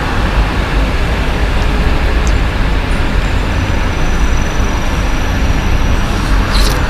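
Steady low rumble and hiss of background noise, with a faint thin high tone in the second half.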